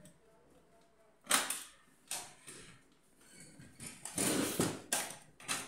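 Plastic top cover of an HP LaserJet P1006 printer being unlatched and lifted off its metal frame: a sharp plastic snap about a second in, another shortly after, then a longer clatter and a couple of clicks near the end as the cover comes free.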